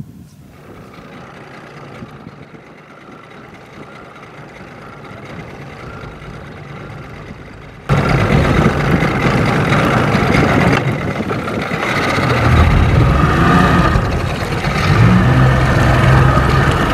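A fainter engine hum, then about halfway in a Mercury 50 outboard motor running close by as the boat gets under way, with the wash of water behind it. The engine's pitch rises and falls in the later part.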